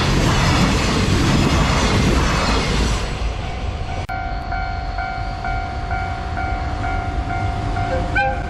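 Freight train rolling past over the level crossing, a dense rumble of wheels on rail for about three seconds. After an abrupt break about four seconds in, the level-crossing alarm rings in a steady repeating pattern of about two to three strikes a second.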